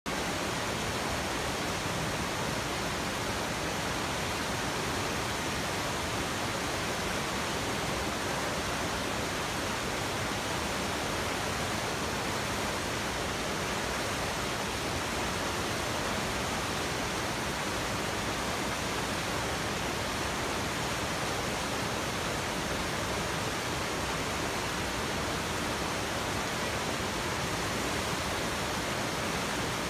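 Whitewater rapid rushing over rocks: a steady, even rush of water that does not change.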